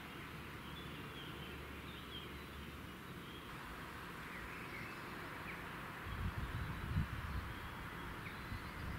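Outdoor ambience: a steady background hiss with faint, short bird chirps scattered through it, and a few low thumps or rumbles about six to seven and a half seconds in.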